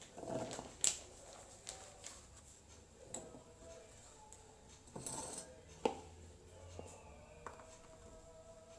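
Green beans handled by hand: cut pieces swept off a bamboo cutting board and dropped into a stainless steel saucepan, then whole beans laid down on the board. Scattered light clicks, taps and rustles, with one sharper tap about six seconds in.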